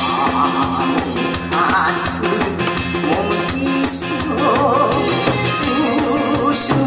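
Large painted Korean barrel drums (buk) struck with wooden sticks in a steady stream of beats, played live over loud, upbeat backing music with a melody line.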